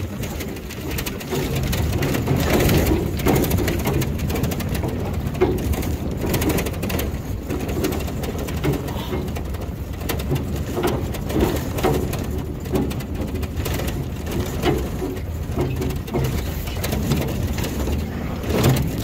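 Truck driving over rough pasture: steady low rumble with frequent knocks and rattles as it bounces over the ground.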